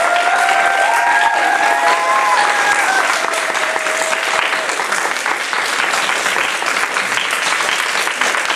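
Applause from a crowd, dense and steady, with a long cheering call held over it for the first three seconds or so.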